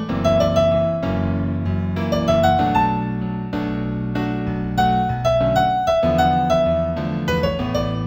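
Solo piano music on a keyboard: a gentle melody of single notes over held lower chords, an A major piece at a moderate tempo of about 96 beats a minute.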